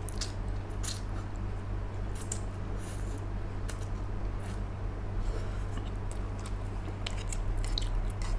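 Close-up mouth sounds of eating instant noodles: slurping strands in and chewing wetly, with many short smacking clicks.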